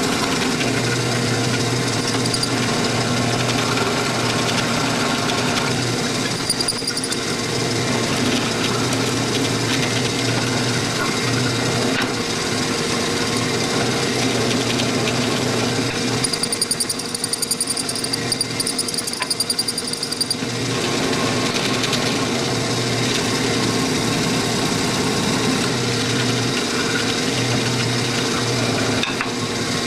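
Drill press motor running steadily at about 450 RPM, driving a 1/2-inch hollow-chisel mortising bit into a wooden board. For a few seconds past the middle the sound turns rough and pulsing as the chisel plunges and scrapes in the wood, where it is sticking.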